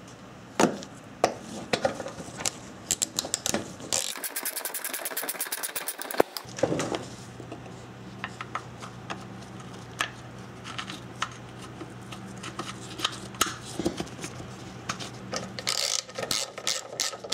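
Hand ratchet clicking as a splash-shield bolt is run in on a socket extension, amid scattered knocks and scrapes of tools and parts against the plastic shield. A quick run of fast clicks comes about four seconds in, and slower, even clicking returns near the end.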